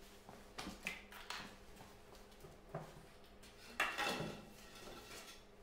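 Steel parts clanking and knocking as they are handled and shifted, several separate knocks with the loudest a little under four seconds in, over a steady low hum.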